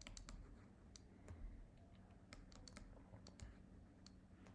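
Faint, irregular clicks of a stylus tapping and scratching on a pen tablet during handwriting, over a faint steady low hum.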